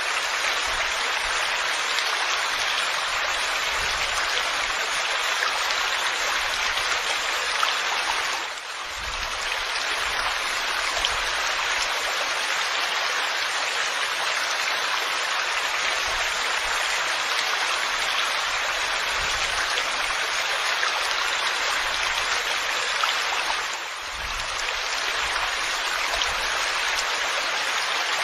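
Rain falling steadily, an even hiss of water that dips briefly twice.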